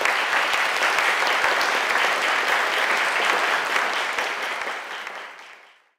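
Audience applauding, dying away over the last second or so.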